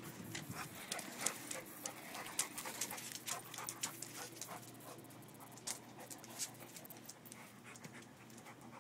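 Dog panting while it noses and mouths at a rollerblade, with many irregular sharp clicks that thin out in the last couple of seconds.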